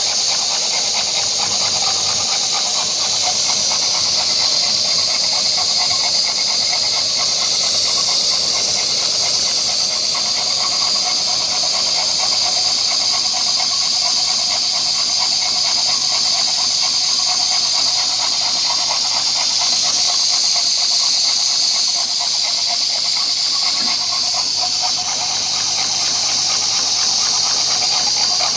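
Cotswold Heritage Perseus model steam engine running under steam, with a loud, steady hiss.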